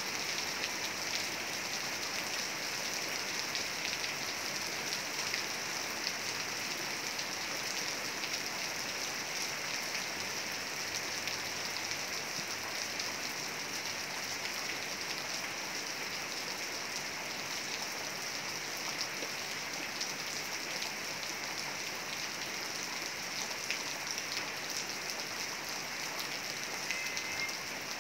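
Heavy rain falling steadily: a dense, even hiss sprinkled with the ticks of individual drops.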